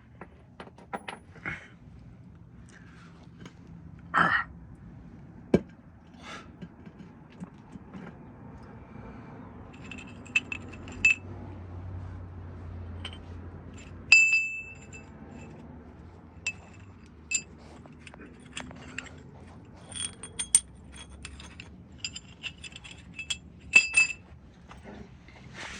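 Metal rear-differential parts clinking and knocking together as they are handled and set down, with sharp ringing chinks about halfway through and a cluster of them near the end.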